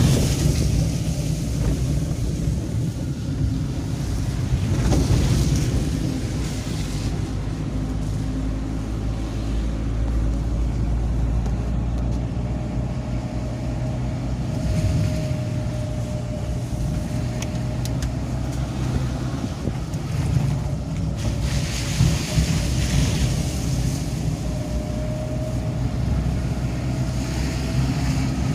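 Car engine and road noise heard from inside the cabin while driving: a steady low drone, with a faint higher whine in the second half.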